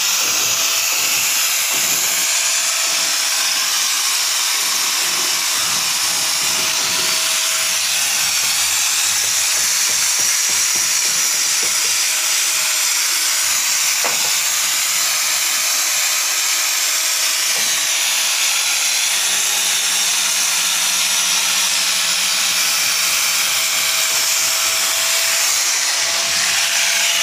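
Four-inch electric angle grinder with a wire brush, held against steel rebar to scour off paint and rust, running with a steady harsh hiss over a faint whine.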